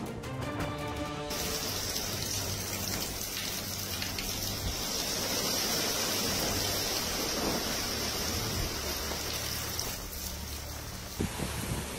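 Steady rushing noise of tropical-storm wind and heavy rain on a phone microphone, with quiet background music underneath. A short tonal sound dies away about a second in, and there is a brief knock near the end.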